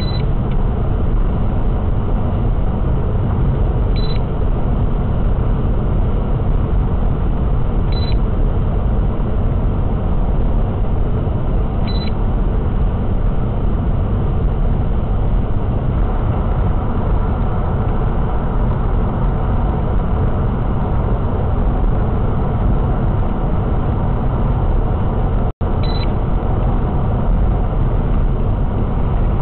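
Steady road and engine noise inside a car cruising at motorway speed, about 118 km/h. A short high electronic beep sounds every four seconds, four times in the first half and twice more near the end. The sound cuts out for an instant shortly before the end.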